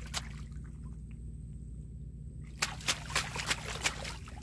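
Hands splashing and sloshing in shallow muddy water while groping for a mantis shrimp; fairly quiet at first, then a run of irregular splashes from a little past halfway.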